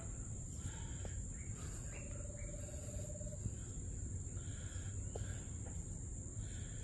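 Tropical forest ambience: a steady, high-pitched insect drone, with short bird calls repeating over it and one brief trill about two seconds in.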